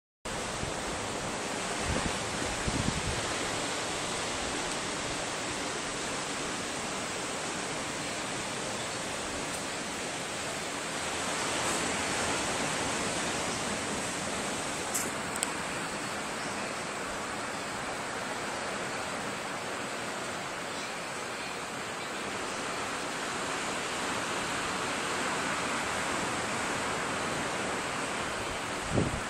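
Steady rushing background noise with a faint high whine, broken by a few soft knocks about two to three seconds in and a short thump near the end.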